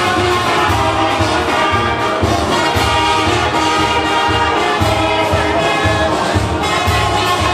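Dance music with a steady bass beat, about two pulses a second, and singing voices over the instruments.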